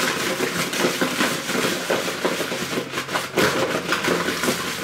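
Sauced chicken wings being tossed in a mixing bowl: a busy run of irregular wet knocks and clatters.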